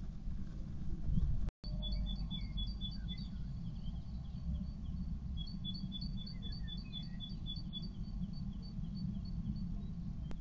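Songbird singing outside a nest box: runs of short high notes repeated about four to five times a second, over a steady low rumble. The sound drops out briefly about a second and a half in, just before the song starts.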